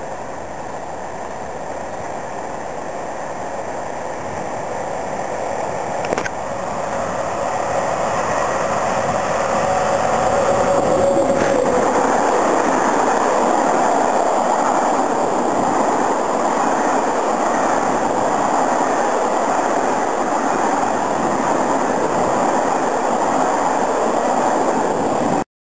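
SNCF BB 26000 electric locomotive hauling a Téoz passenger train running through a station at speed. The steady rush of wheels on rail grows louder as the train comes up, with a brief humming tone about ten seconds in, then holds loud as the coaches stream past.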